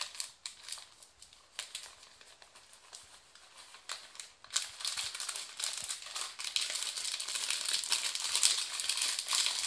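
Plastic bag crinkling as carob flour is poured out of it into a plastic tub. There are scattered crackles at first, then steady, louder crinkling from about halfway through.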